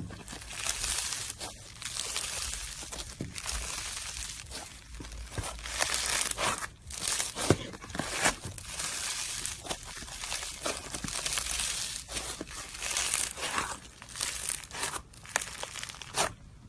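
Slime being squished, poked and stretched by hand, giving a dense run of crackling and popping. The sound stops just before the end.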